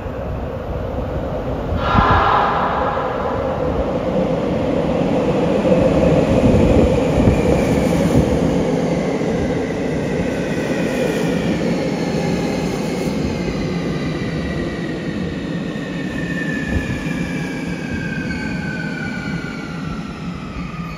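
Sotetsu 21000 series electric train pulling into an underground station. A brief, loud pitched blast sounds about two seconds in. After that the cars rumble past while the motor whine falls steadily in pitch as the train brakes.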